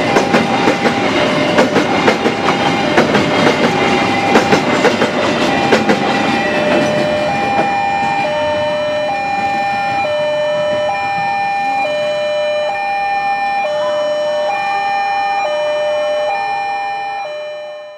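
A passing train's wheels clatter over the rail joints, fading away over the first six or seven seconds. Throughout, a level-crossing warning alarm sounds a steady two-tone alternating chime, high then low, under a second each, which is left on its own once the train has gone.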